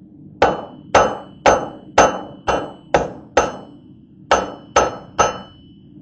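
Hand hammer striking a hot welded wire blade tip on an anvil, forging the tip to shape: seven blows at about two a second, a pause of about a second, then three more, each blow followed by a short ringing of the anvil.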